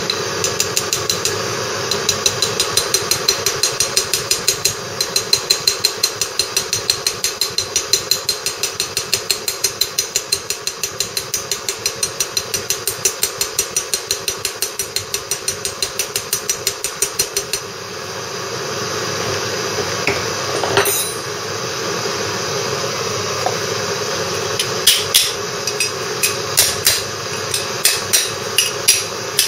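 Hammer tapping an RLS12 ball bearing down into the Lister D's heated crankshaft bearing housing: quick, even light taps, several a second, for most of the first two-thirds. After a short pause come a few louder, separate taps through a flat steel plate laid over the bearing. A steady hum runs underneath.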